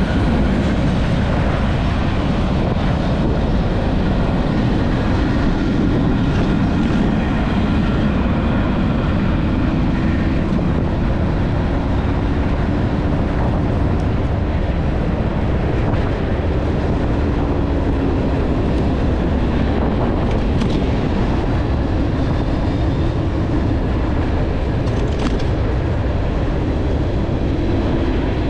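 Train running alongside, heard over a steady, continuous low rumble of wind and travel noise from riding next to it.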